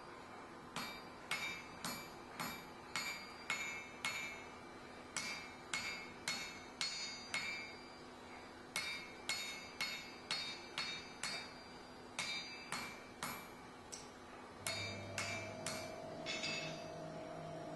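Turning hammer striking a red-hot high-carbon steel bit (recycled leaf spring) on an anvil to bend a curve into it: sharp ringing blows about two a second, in runs of several strikes with short pauses. A low steady hum comes in near the end.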